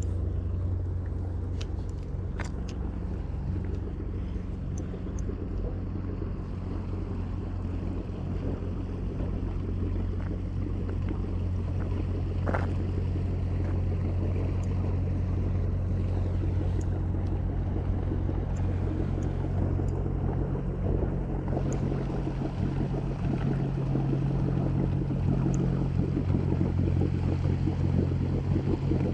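Boat engine idling, a steady low drone that holds one pitch throughout, with a few light clicks now and then.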